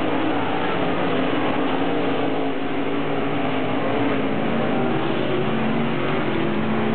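A pack of dirt late model race cars, V8 engines, running together at racing speed around a dirt oval: a dense, steady engine drone with several engine pitches wavering against each other.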